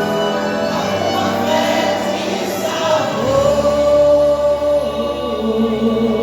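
A church vocal group singing a gospel hymn in harmony with musical accompaniment. About three seconds in, a low bass note comes in and a voice holds one long note.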